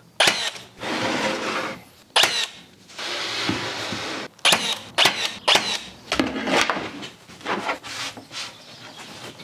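Pin nailer firing pins into the board panels of a cabinet carcass: a series of sharp shots, several in quick succession in the middle, with the panels being handled and set in place between them.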